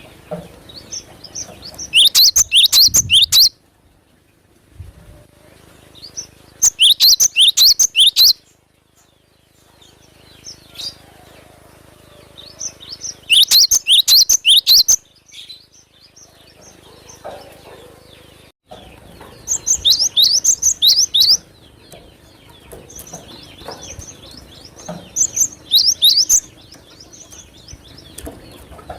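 Cinereous tit (gelatik batu) singing: five loud bursts of quick, high, repeated sweeping notes, each about a second and a half long, with pauses of several seconds between them.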